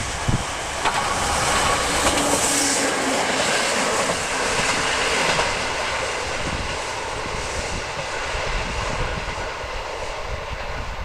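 Kyoto Tango Railway diesel train running past: a steady rumble and rush of wheels on rail, loudest about two to three seconds in and slowly fading. Wind buffets the microphone.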